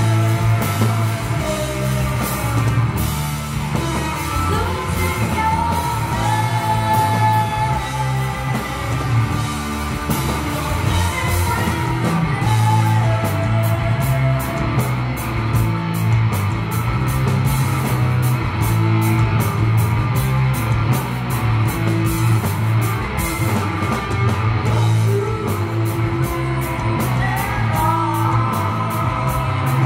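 Heavy rock band playing live: a woman singing a gliding melody over distorted electric guitar, bass, keyboard and drums with steady cymbal hits, heard in the room of a club.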